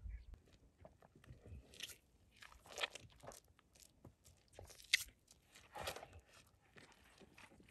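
Calf suckling at a cow's teat: irregular wet sucking and slurping sounds starting about a second and a half in, roughly one or two a second.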